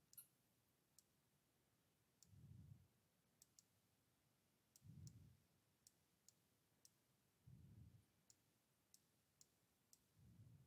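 Near silence with faint computer-mouse clicks, about a dozen, scattered irregularly while Street View is being stepped along. Soft low thuds come about every two and a half seconds.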